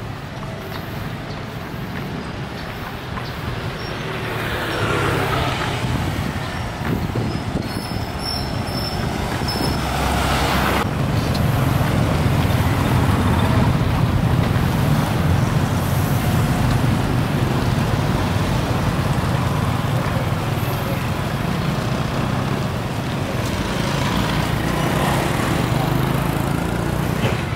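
Steady motor vehicle and road noise: a low engine rumble under a wash of traffic noise, growing louder about four seconds in and again around ten seconds in.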